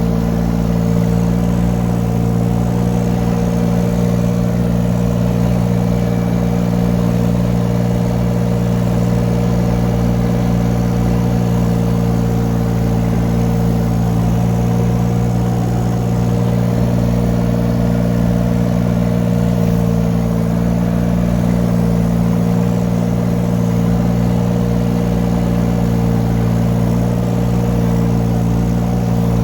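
Mini excavator's engine running steadily at a constant speed while the 2-ton machine travels, an even hum with no change in pitch.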